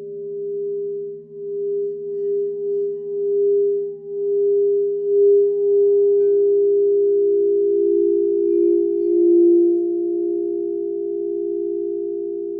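Singing bowls ringing in steady, pure sustained tones, the main tone swelling and pulsing. About six seconds in, another bowl is struck and adds a slightly lower tone, and the tones then hold and slowly fade.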